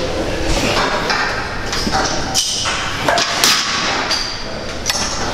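Gym weight equipment clanking and thudding: several sharp knocks of metal weights spread through, over a steady busy-gym background.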